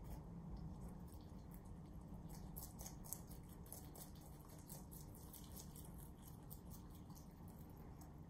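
Rabbits chewing crisp leafy greens: quiet, rapid crunching and snipping, thickest from about two seconds in.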